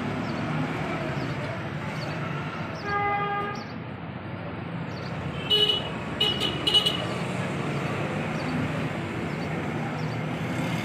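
Street traffic with a vehicle horn: one short toot about three seconds in, then three quick, higher-pitched beeps around six seconds in, over a steady background of traffic.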